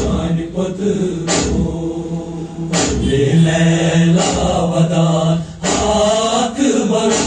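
Men's voices chanting a noha, a Shia mourning elegy, in unaccompanied melodic phrases.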